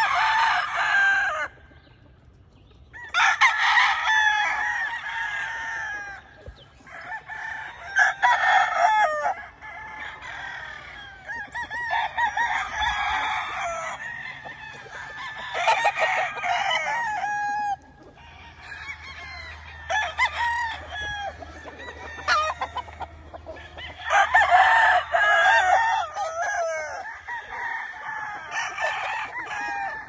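Many gamefowl roosters crowing, their calls overlapping in a loud burst every few seconds, with quieter crows and clucks between.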